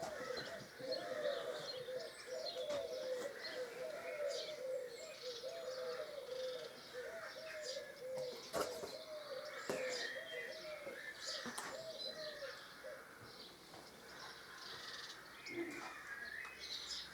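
A pigeon cooing in a long run of quick, arched low notes, falling off about three quarters of the way through. Faint chirps of small birds and a few sharp clicks sound alongside.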